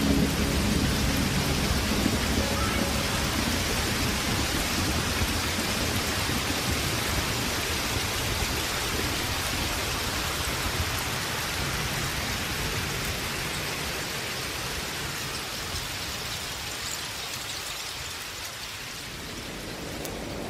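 Steady rain sound, a dense, even hiss that slowly grows fainter.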